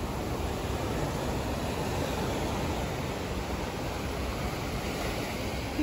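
Small waves breaking and washing up a sandy beach: a steady wash of surf.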